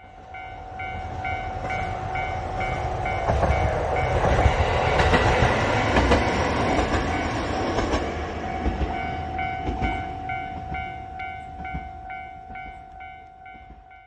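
JR Hokkaido H100 series (DECMO) diesel railcar passing, its rumble and wheel clatter building to its loudest about halfway through and then fading away. Over it, a level-crossing warning bell rings steadily with rapid, evenly spaced strikes.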